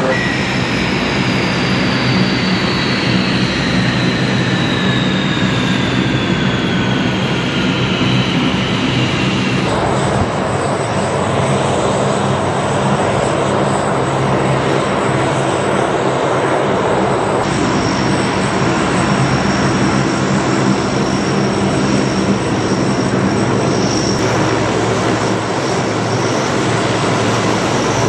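C-130 Hercules's four Allison T56 turboprop engines running on the ground as the aircraft taxis: a loud, steady propeller and engine drone with a high turbine whine. Over the first ten seconds the whine glides downward, and later a steady high whine sits on top of the drone.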